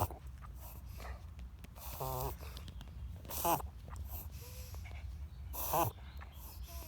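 A dog wheezing in a bout of loud, strained, snorting breaths, three of them with a wavering pitched note, about every one and a half to two seconds.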